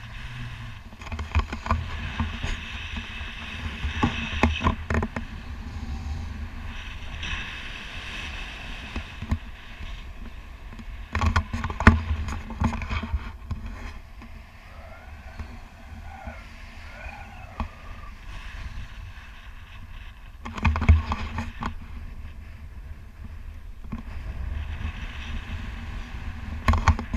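Wind rushing and buffeting over the microphone of a camera carried on a tandem paraglider in flight, a steady rush with louder gusts about a third of the way in and again toward the end.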